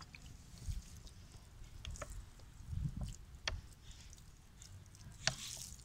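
Faint pattering of water spraying from a homemade watering can, a plastic soda bottle with holes punched in its cap, onto loose soil. A few sharp clicks come from the plastic bottle being squeezed in the hand, and there is a brief hiss of spray about five seconds in.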